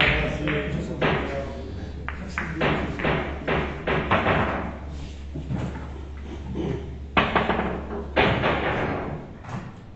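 Billiard balls knocking: a run of sharp clacks and thuds as balls strike each other, the cushions and the table, with two louder knocks about seven and eight seconds in. A steady low hum lies underneath.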